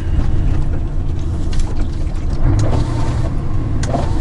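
Mercedes-Benz Actros 1844 truck's diesel engine running with a steady low rumble, with a few light clicks over it.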